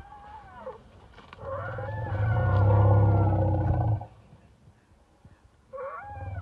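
Asian elephants rumbling to each other: a higher call gliding down at the start, then a long, loud, deep rumble from about one and a half to four seconds in, and another rumble with a rising note near the end.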